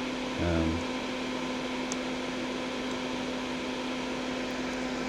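Steady fan-like mechanical hum with a constant low tone underneath. A brief murmur from a person's voice comes about half a second in.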